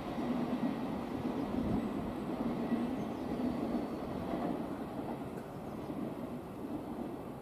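Thameslink Class 700 electric multiple unit running along the track as it pulls away, a steady rumble of wheels on rail that slowly fades.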